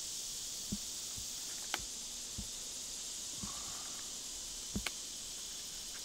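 Barbed wire being twisted into a splice by gloved hands: a few faint, separate clicks and knocks of the wire, over a steady high insect hiss.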